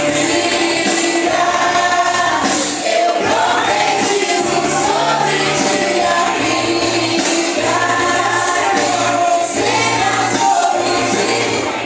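A group of singers performing a gospel worship song with instrumental accompaniment.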